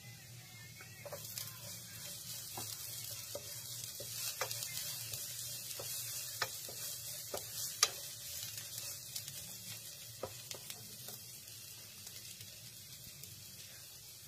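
Chopped garlic and ginger slices sizzling in hot oil in a non-stick pan. A utensil stirs them with scattered sharp clicks against the pan, the loudest about eight seconds in. The sizzle swells about a second in and eases off toward the end.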